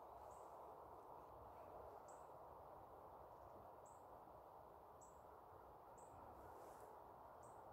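Near silence outdoors: a faint steady hiss with a small bird's thin, very high chirps, six of them about a second or two apart.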